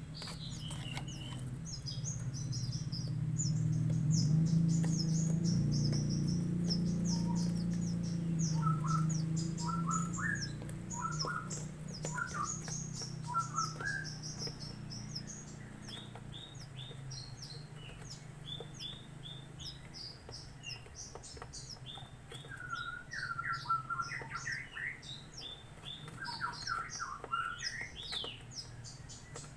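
Javan bushlark young chirping: rapid short high-pitched chirps throughout, with a run of lower, rougher call notes now and then. A low steady hum underneath is loudest in the first half.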